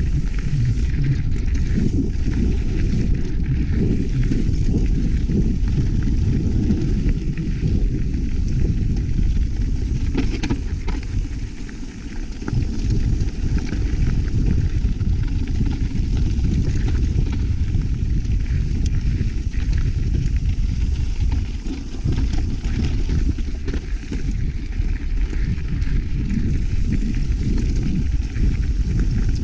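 Wind buffeting a GoPro action-camera microphone on a mountain bike descending a dirt trail, a loud steady low rumble. Scattered knocks and rattles come from the bike and tyres over rough ground.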